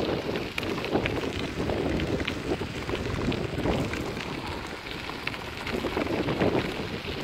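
B'Twin Triban 100 road bike's tyres rolling over a gravel path: a steady crunching rattle of grit under the wheels, full of small clicks.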